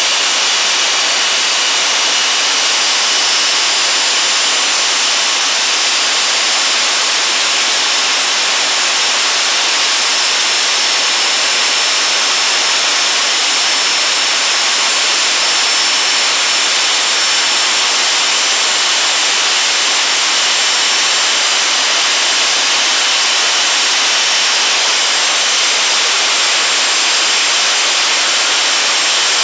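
Rolls-Royce Marine Spey gas turbine running steadily on its test stand after overhaul: a loud, even rush with several high, steady whines laid over it.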